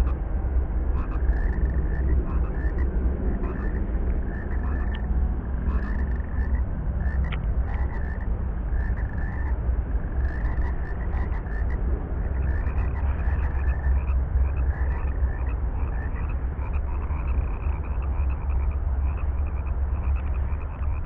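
Frogs calling in a chorus: many short croaks repeated over and over, over a steady low rumble.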